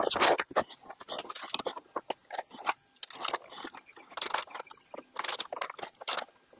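A dry-erase board being slid and shifted by hand across a wooden CNC spoilboard: irregular scrapes, rubs and light knocks, loudest in the first half second.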